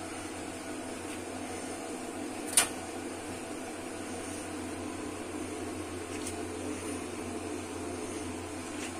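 A steady machine hum, with one sharp click about two and a half seconds in.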